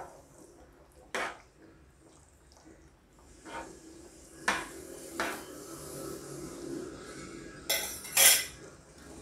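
A steel spoon stirs a thick curry in a non-stick pan, scraping the pan and clinking against its sides several times. A couple of louder metal knocks come near the end.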